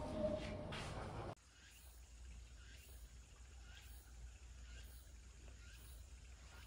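Quiet outdoor ambience. A low rush of open-air noise cuts off abruptly about a second in, leaving a much fainter background with faint insect chirping.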